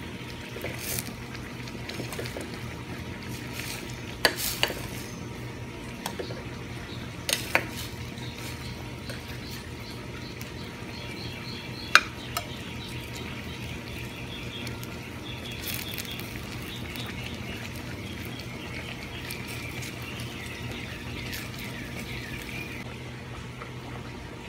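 Tomato-chilli sauce with boiled eggs simmering and bubbling steadily in a stainless steel saucepan on a gas burner as it thickens over the final minutes. A few sharp clicks of a spoon against the pot come through, the loudest about halfway through.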